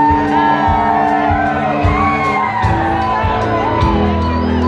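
A rock band playing live: electric guitars, bass, keyboard and drums, with a sliding lead melody over steady chords and regular drum hits.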